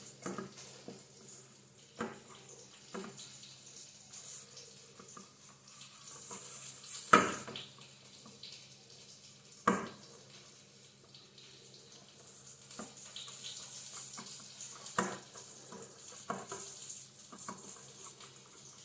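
Hand kneading soft maida dough in a stainless steel bowl: quiet squishing and pressing, with a few sharp knocks against the steel, the loudest about 7 and 10 seconds in.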